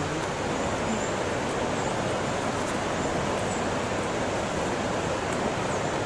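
Steady rush of falling water from the Krimml Waterfalls, an even hiss without breaks.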